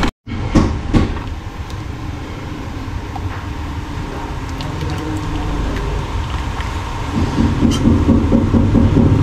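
Metal ladle stirring thickening sauce in a large pan, with a few sharp clinks in the first second, over a steady low rumble that slowly grows louder.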